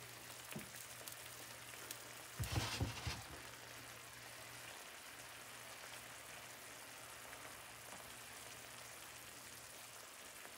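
Chicken-stock sauce simmering in a frying pan, a faint, steady bubbling crackle, with one brief knock about two and a half seconds in.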